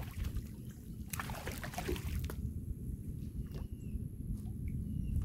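Water sloshing and splashing from a hooked gar being played and brought in to the net, with a few sharp knocks over a steady low rumble.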